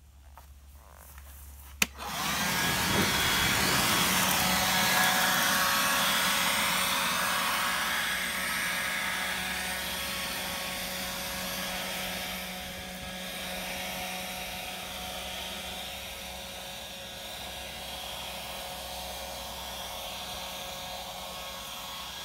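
Cordless electric leaf blower switched on with a click about two seconds in, then running steadily: a rush of air over a motor whine, slowly getting quieter toward the end.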